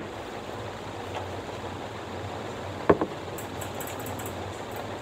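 Steady background hiss with handling sounds from a makeup pouch and its contents: a small knock at the start, a louder short knock about three seconds in, then a few faint light clicks.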